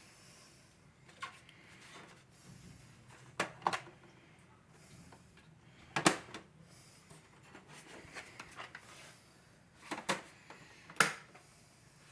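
Plastic packaging and toy parts being handled: scattered sharp clicks and knocks, about six in all, with the loudest near the middle and near the end.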